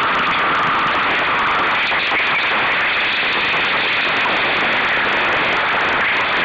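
Steady rushing noise of wind and water aboard a sailing dinghy under way.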